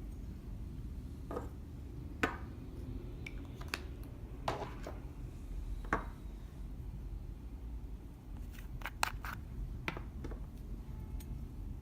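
Scattered sharp clicks, taps and scrapes from makeup and slime being handled with tools, the loudest about two, six and nine seconds in, over a steady low hum.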